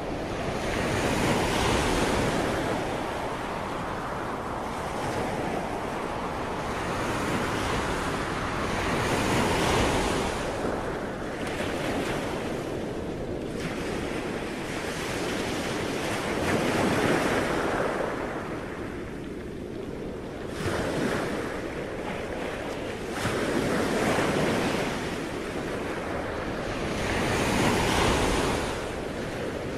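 Ocean surf: waves breaking and washing in, the rush of water swelling and falling back every several seconds, with wind.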